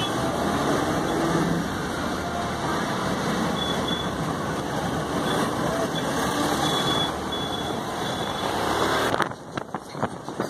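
Tourist road train running along the street, heard from aboard: a steady engine and road rumble that drops off sharply about nine seconds in.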